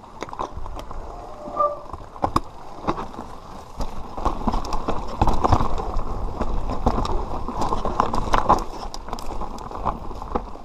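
Mountain bike riding down a rough dirt trail: the bike rattles, with many sharp clicks and knocks from bumps, over wind rumble on the camera microphone. The rattling gets louder about four seconds in.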